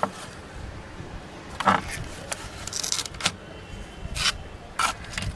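Scattered knocks and scrapes of a plywood speaker board being handled and pulled off a bakelite radio cabinet, several sharp handling sounds at irregular intervals.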